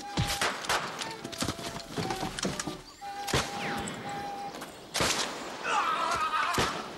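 Fight-scene sound effects: a scuffle of blows and thuds with several sharp cracks, among them a black-powder pistol shot. Near the end comes a wavering call that fits a horse neighing.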